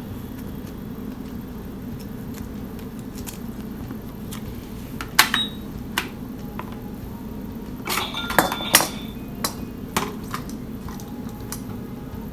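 Scattered clicks and clinks of plastic toy cash register pieces being handled, over a steady low hum. The loudest knocks come about five seconds in and in a quick cluster a little past the middle.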